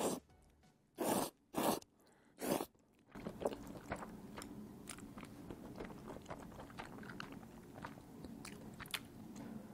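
A person slurping stir-fried instant noodles, four loud slurps in the first three seconds, then chewing the mouthful with small wet clicks.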